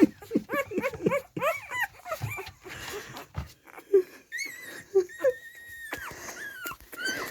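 A one-week-old puppy crying while handled: a run of short squeals that rise and fall, then thin high whines, one held steady for most of a second about five seconds in.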